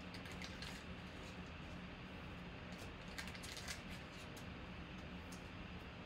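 Foil trading-card pack wrapper crinkling as cards are pulled out and handled: faint rustling and crisp clicks in two short flurries, one near the start and one about three seconds in, over a steady low hum.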